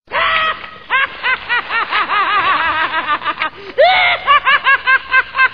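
A high-pitched cartoon character's laugh: a fast, cackling run of short syllables, about five a second, with one longer held note about four seconds in. It sounds muffled, from an old recording.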